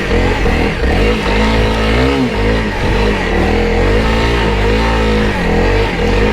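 Honda CRF300L Rally's single-cylinder engine revving up and down repeatedly under load on a steep, rough climb.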